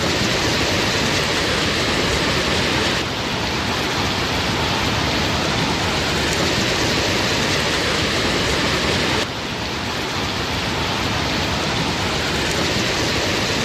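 Steady rush of water from heavy rain or floodwater. Its level changes abruptly about three seconds in and again about nine seconds in.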